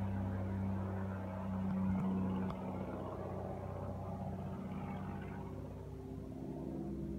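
SAAB 91B Safir's six-cylinder Lycoming piston engine and propeller in flight: a steady drone that slowly grows fainter.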